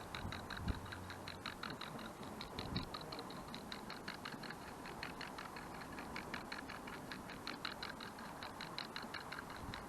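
Clockwork IKEA kitchen timer ticking rapidly and evenly, several ticks a second, as it runs down and turns the panorama mount. Two short low thumps come about two-thirds of a second in and near three seconds.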